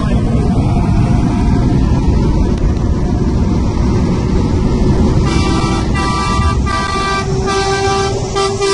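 Loud road, wind and engine rumble inside a car at highway speed, with a KAMAZ rally truck running close alongside. About five seconds in, a horn starts sounding in a run of short repeated honks.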